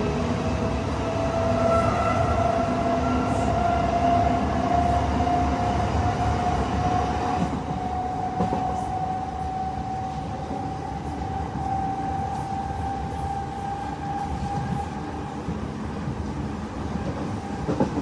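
Class 376 Electrostar electric multiple unit accelerating hard from a stand. Its traction motors give a steady whine that climbs slowly in pitch over the running noise of the train.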